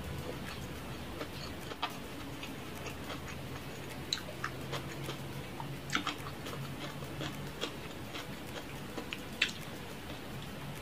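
Close-up eating sounds: scattered small wet clicks and smacks of chewing, over a steady low hum.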